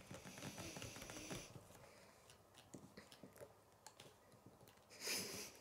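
Faint clicks and rubbing of plastic K'nex pieces being handled and pressed together, with a short hiss near the end.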